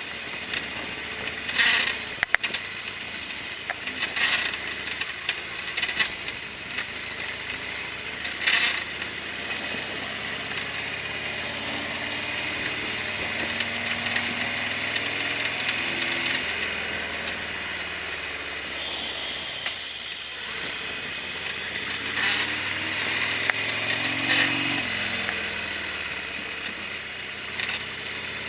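Harley-Davidson Sportster XL1200R's air-cooled V-twin running under way, its pitch rising and falling with the throttle over wind and road noise. A few sharp knocks stand out in the first nine seconds, and two more come later.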